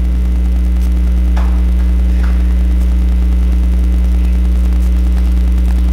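Steady low electrical mains hum through the sound system, with a few faint clicks.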